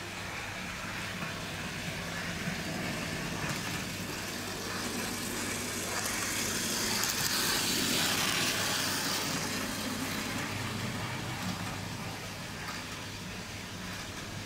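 Bachmann OO gauge Wickham Type 27 trolley running past on the track, the micro motor in its powered wagon whirring. It grows louder to a peak about halfway through and fades away, over a steady low hum.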